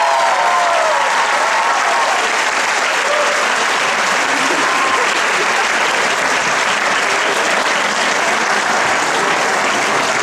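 Audience applauding steadily, a dense sustained clapping, as the dance music's last notes die away in the first second.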